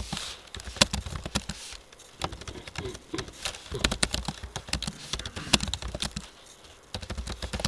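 Typing on a computer keyboard: irregular key clicks in quick runs with short pauses.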